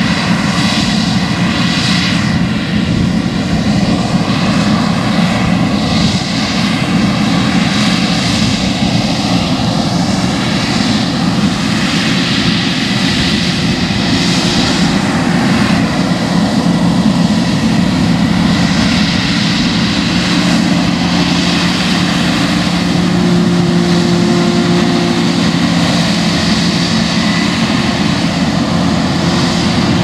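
New Holland CR7.90 combine harvester cutting wheat: the steady, loud drone of its engine and threshing machinery running under load. A low hum within it grows stronger about halfway through.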